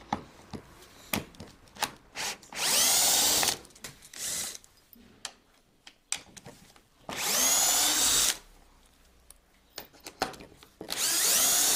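Cordless drill-driver driving screws into an MDF board to fasten castors. It runs in several short bursts of about a second each, the motor pitch rising as each starts. Small clicks and knocks sound between the bursts.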